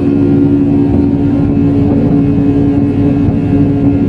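Steady drone of an airliner's jet engines heard inside the cabin: an even rumble under a constant low hum, unchanging throughout.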